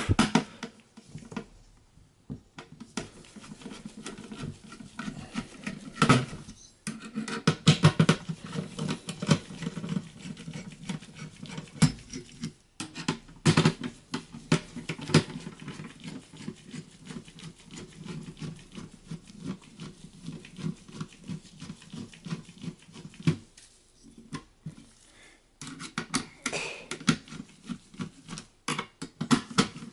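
Phillips screwdriver backing out the processor heatsink screws on a Dell Optiplex 3040 Micro: a steady run of small scraping clicks and ticks, with a few louder clicks now and then.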